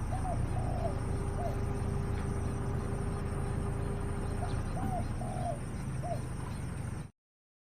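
A bird calling in short, arching notes, two groups of three or four, over a steady low rumble.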